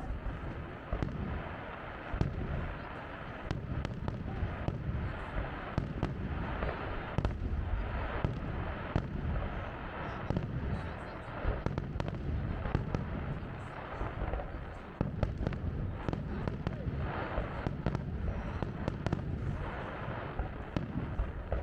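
Fireworks going off continuously, with a dense run of sharp bangs and crackles over a low rumble, and voices of onlookers mixed in.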